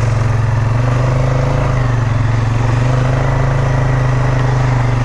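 Polaris Sportsman 570 ATV's single-cylinder engine running at steady revs, with no rise or fall in pitch.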